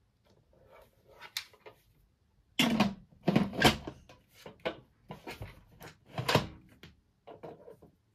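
Lid of a Vestel Ziyafet electric pressure cooker being set onto the pot and turned to lock: a run of clunks and scrapes, loudest about two and a half seconds in and again near six seconds.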